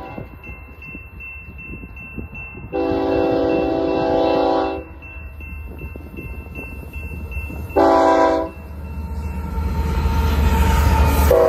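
Freight locomotive's multi-chime air horn sounding a long blast, then a short one, the pattern of the long-long-short-long grade crossing signal. Between the blasts the diesel locomotives' rumble and the wheel noise build up to the loudest point as the train draws close.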